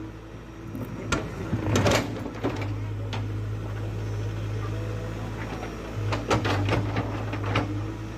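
JCB 3DX backhoe loader's diesel engine running steadily, with several sharp knocks and clatters, a cluster of them near the end.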